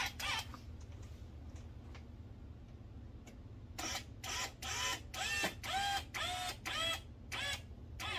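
Cordless drill run in a series of short trigger pulses, its motor whining up and then back down in pitch with each one, about eight in a row over the second half, as it works through a plexiglass panel into a wooden frame.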